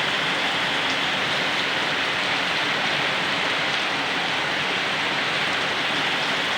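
Heavy rain pouring down steadily, an even hiss with no letup.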